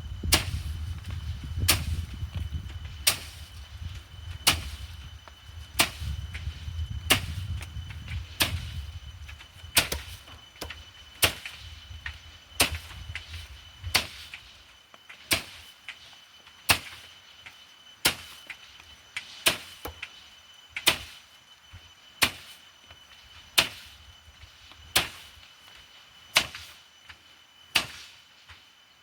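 Soybean being harvested by hand: a run of sharp strikes, about one every second and a half at first, then about twice as fast from halfway, over a low rumble that fades out around the middle.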